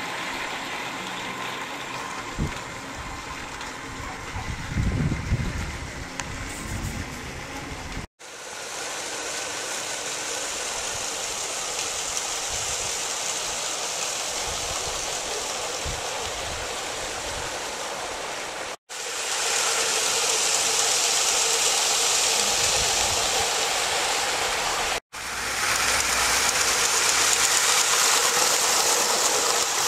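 Custom LEGO trains running at speed around a plastic LEGO track: a steady whirring and rattling of the train motors and wheels. The sound breaks off at three hard cuts and is louder in the later shots, where a train passes close by.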